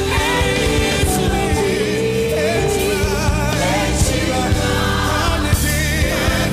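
Gospel praise music: several voices singing over instrumental backing, with a steady beat.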